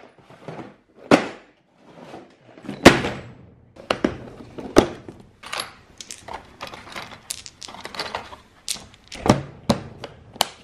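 Plastic parts organizer box handled and rummaged through: knocks of the plastic case and clinks of small steel hex nuts being picked from its compartments, with a sharper click near the end as the lid is shut.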